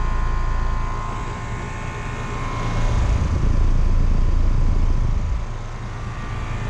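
A 4-ton American Standard Silver series central air conditioner's outdoor condenser running: a steady fan and compressor rumble with a constant hum-like tone over it. The rumble swells and eases slightly over the few seconds.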